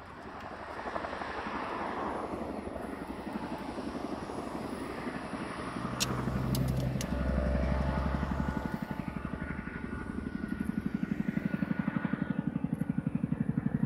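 Boeing CH-47J Chinook tandem-rotor helicopter in low flight: engine noise with the rapid, even chop of its two rotors. The sound swells in the first couple of seconds, and the blade chop grows louder and more distinct in the second half.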